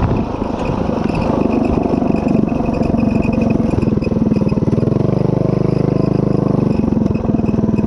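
Predator 212cc single-cylinder four-stroke engine (Stage 1, governor removed) on a DoodleBug DB30 mini bike, running under load while riding. The engine note is uneven at first and settles to a steady speed about five seconds in. Near the end it dips briefly off the throttle and then picks up again.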